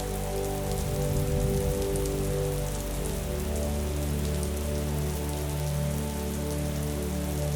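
Steady rain pattering, with soft held music chords underneath that change about three seconds in.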